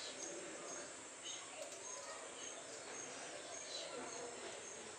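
Quiet ambience with a faint high chirp repeating about two to three times a second, and a few other faint scattered chirps.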